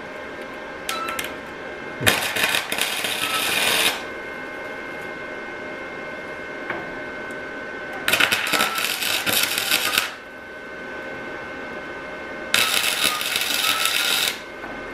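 Electric arc welding: the welder crackling and sputtering in three bursts of about two seconds each, with a short tack about a second in, as a steel support bracket is welded to a car's underbody. A faint steady tone runs underneath.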